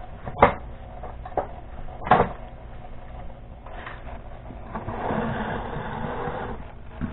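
Two sharp knocks in the first couple of seconds, then, from about five seconds in, a model's round display stand being slid across a wooden tabletop: a rubbing scrape lasting about a second and a half.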